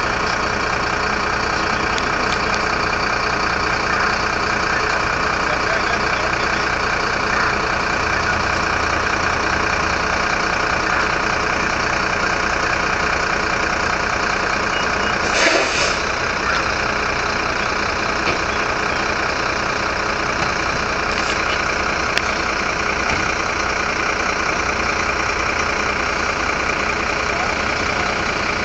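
Steady engine hum, as of a vehicle idling, with one short knock about halfway through.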